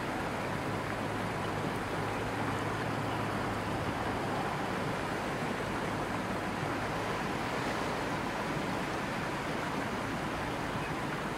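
Strong wind: a steady, even rushing noise with no let-up.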